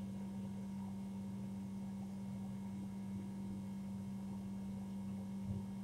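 Steady low electrical hum in otherwise quiet room tone, with no distinct events.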